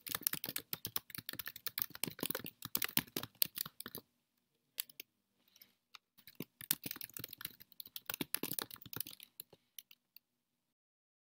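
Rapid keyboard typing: dense runs of key clicks for about four seconds, a pause with a few stray clicks, then a second run of about three seconds that tails off into single clicks.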